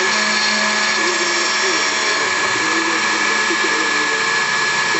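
Hobby CNC router milling: the spindle runs with a steady high whine over cutting noise, while the stepper motors give shifting, wavering tones as the axes move.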